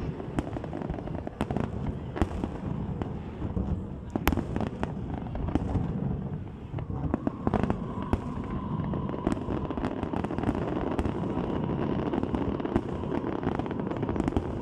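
Fireworks going off: a dense run of irregular bangs and pops over a continuous low rumble, with a faint steady tone joining about halfway through.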